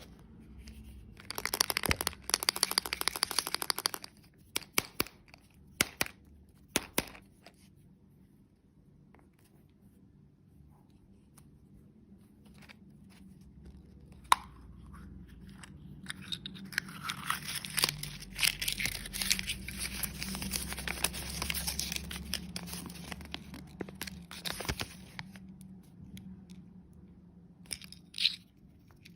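Candy packaging being torn open and crinkled, in two spells: a short burst near the start and a longer one in the second half, with a few sharp clicks between.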